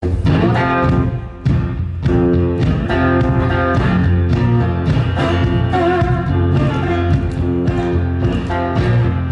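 Blues band playing: guitar over a steady bass line and beat.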